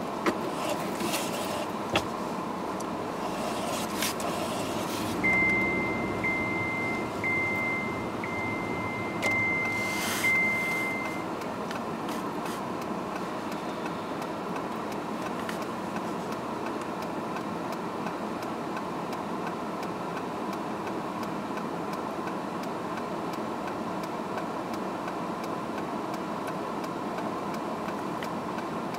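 Car cabin hum from the running engine, heard from inside the car. Between about five and eleven seconds in, a car's warning chime beeps about once a second, six times, with a few knocks and rustles around it.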